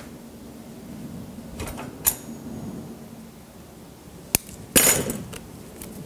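Handling noise from wiring a Japanese white pine bonsai: metal wire and tools clicking and clinking against the branches. There is a sharp click about two seconds in, another just after four seconds, and a louder, brief noisy scrape about five seconds in.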